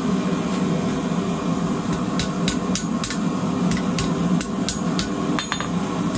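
Hand hammer striking a red-hot square steel bar on an anvil to straighten it after twisting. The blows start about two seconds in and come at roughly three a second, over a steady low hum.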